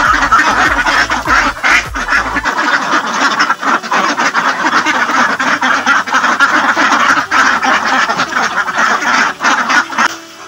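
A large flock of domestic laying ducks quacking all at once, a dense, continuous overlapping din that drops away near the end.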